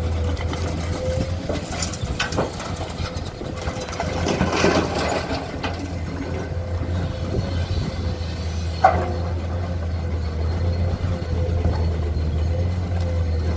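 Heavy diesel earthmoving machinery running steadily, with a constant low engine hum and a thin steady whine over it. Scattered clanks and rattles come through, with a rougher clattering stretch around four to five seconds in and a single sharp knock near nine seconds.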